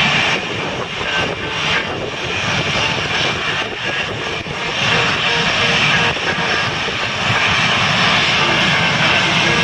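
Several F/A-18 Hornet fighters' twin turbofan jet engines idling together, a loud steady rushing noise with a faint whine.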